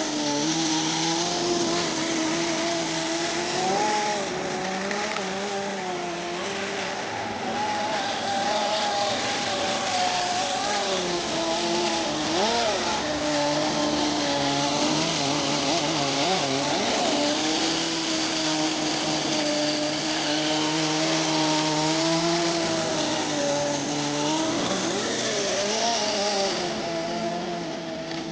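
Small two-stroke nitro glow engine (Kyosho GX-15) of an RC snowcat running, its pitch wavering up and down with the throttle, with quick blips of revving about twelve, sixteen and twenty-five seconds in.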